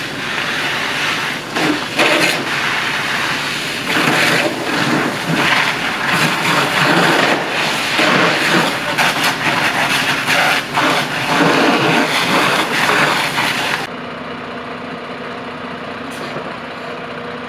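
A burning car being hosed down by firefighters: a dense hiss of water spray and fire, with crackles and sharp pops. About fourteen seconds in it cuts abruptly to a quieter, steady hum of fire engines idling.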